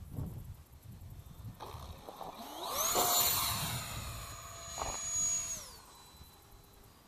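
The 70 mm electric ducted fan of an E-flite Habu SS RC jet rises in pitch to a high, steady whine about two and a half seconds in, holds it for about three seconds, then winds down. Before that, gusts of wind rumble on the microphone.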